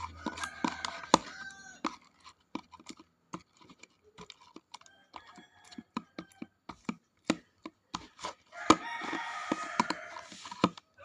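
Sticky homemade slime being kneaded by hand, giving a rapid, irregular run of sharp clicks and pops as it sticks to and pulls off the fingers. The slime is still very sticky at this stage.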